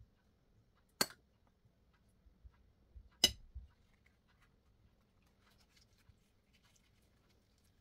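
Two sharp clinks, about a second in and just past three seconds, the second the louder: a metal spoon knocking against a dish while spooning out filling. Afterwards the thin pastry wrapper rustles faintly as it is folded.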